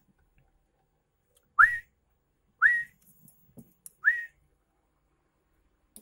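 A person whistling three short rising notes, about a second apart.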